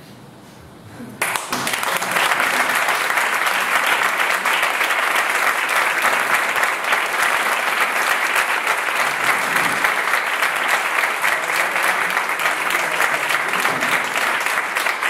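Audience applauding, the clapping starting suddenly about a second in and then running on steadily and loud.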